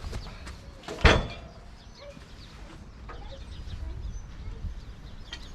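A single sharp knock about a second in, from the log being shifted against the manual sawmill's bed and backstops, with a few faint clicks and low wind rumble on the microphone.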